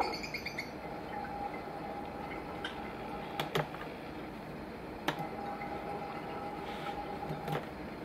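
Lovebirds chirping, played back through a laptop's speakers, with a few sharp taps on the laptop keyboard, two close together about three and a half seconds in and single ones near five and seven and a half seconds.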